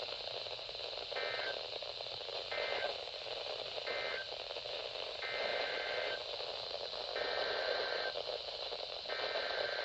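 Weather-radio SAME (Emergency Alert System) digital data bursts received over static: three short bursts about a second and a half apart, then three longer bursts of nearly a second each, each a rapid warble between two high tones. The short bursts are the end-of-message codes closing one alert, and the longer ones are the header codes opening the next.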